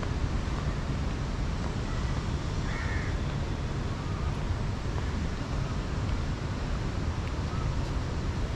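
Steady low rumble of outdoor city background noise, with one short bird call about three seconds in and a few faint chirps after it.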